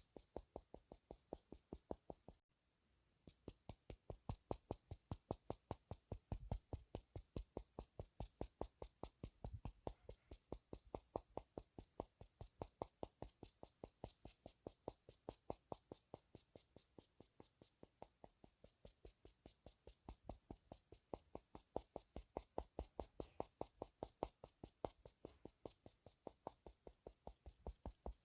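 Soft, quick tapping, about four taps a second and very even, with one short break about two and a half seconds in, typical of ASMR tapping on makeup items.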